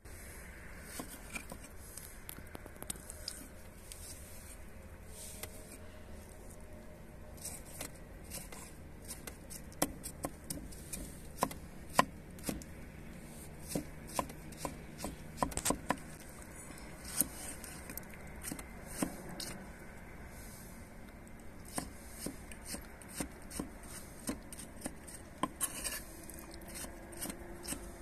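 Large kitchen knife chopping tomatoes on a thick wooden log-slice board, the blade knocking the wood in irregular strokes. The knocks are sparse at first, then come thicker and louder through the middle and later part.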